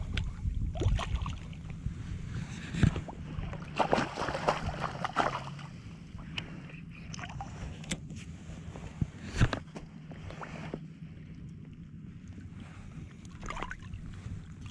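Choppy bay water sloshing and splashing right at the microphone as a fish is scooped into a landing net, with a few sharper splashes along the way.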